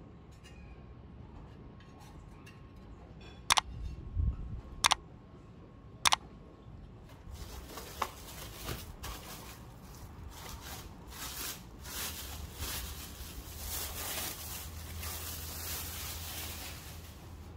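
Handling noise while a portable gas stove is unpacked: three sharp clicks that each ring briefly, then, from about seven seconds in, steady rustling and small knocks.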